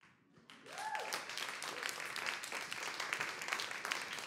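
Audience applause, starting about half a second in and then running steadily as many hands clapping.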